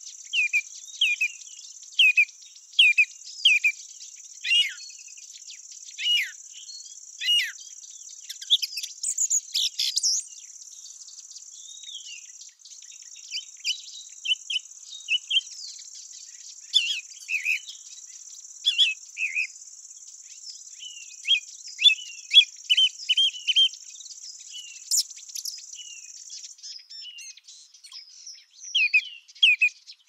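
Small birds singing in short, repeated chirps over a steady, high insect trill from crickets or grasshoppers; the trill stops shortly before the end.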